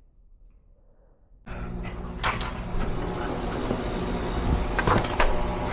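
Heat pump system running: a steady hum and fan rush that comes in abruptly about a second and a half in, with a few light knocks. It is running in heat mode though the thermostat is set to cool, which the tech takes for a replacement thermostat programmed wrong, set as conventional instead of heat pump.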